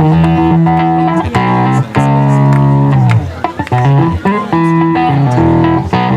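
Instrumental break on an amplified plucked-string instrument, with held notes and chord changes about once a second, and no singing.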